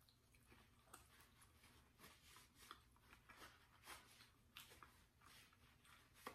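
Faint, irregular rustling and crinkling of a paper napkin as hands are wiped with it.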